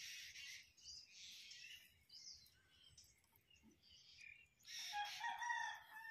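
Dry straw rustling in several short bursts as it is handled and pressed onto a bamboo frame, faint. Near the end a bird calls.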